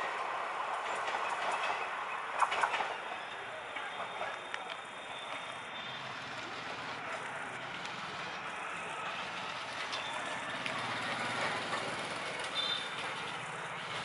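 Passenger train rolling away down the track, the steady rumble of its coaches' wheels slowly easing off, with a cluster of sharp knocks about two and a half seconds in.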